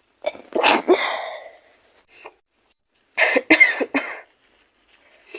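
A woman with a feverish cold coughing and sneezing in short fits: one fit about half a second in, three quick bursts about three seconds in, and another starting near the end.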